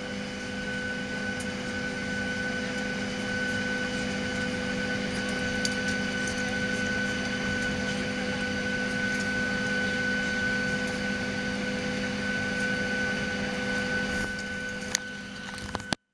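Steady cabin hum inside a parked Boeing 737-700: the air-conditioning and ventilation run with a high, steady whine over a low drone, with a few faint clicks. The sound cuts off suddenly near the end.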